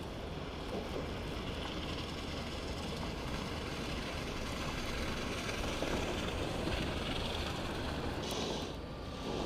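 Steady city street noise: a continuous rumble of traffic, with a brief hiss near the end.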